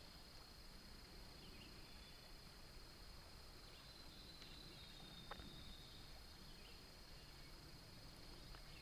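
Near silence with a faint, steady high-pitched insect drone, and one faint click about five seconds in.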